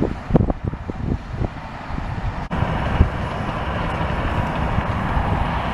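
Cat D6T bulldozer's diesel engine running and its tracks working as it pushes heavy clay, under irregular low thumps. About two and a half seconds in the sound cuts to a steadier, denser noise from the machine.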